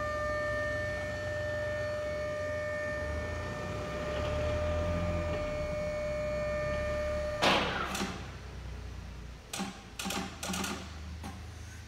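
Electric hydraulic lift pump of a Still Wagner EGV 12 pallet stacker whining steadily as the forks rise, cutting off about seven and a half seconds in with a clunk. A few shorter knocks follow near the end.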